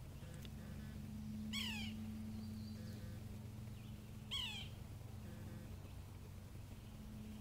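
Two short animal calls, each falling in pitch, about three seconds apart, over a steady low hum.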